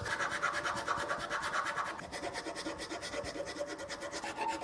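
Round wood rasp filing back and forth inside a drilled hole in a small block of wood clamped in a vise, enlarging the hole: a continuous rasping made of many fast fine ticks.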